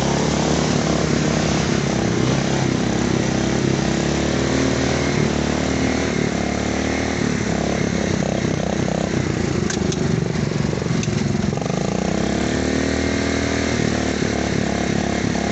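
Riding lawn mower engine running and revving under load as it tows a quad stuck in mud ruts. The engine pitch shifts several times, dipping and then climbing again about twelve seconds in.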